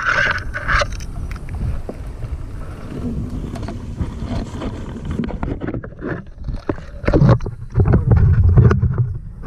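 Low rumbling noise, like wind on the microphone, with scattered knocks from handling gear on a small river boat; the rumble and knocks get heavier from about seven seconds in.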